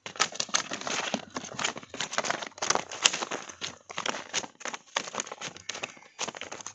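A live fish flapping in a plastic basket, its body slapping and rattling against the plastic in a rapid, irregular run of taps that thins out near the end.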